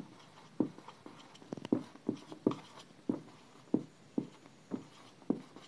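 A dry-erase marker writing on a whiteboard: about a dozen short, uneven strokes as the letters of a word are drawn.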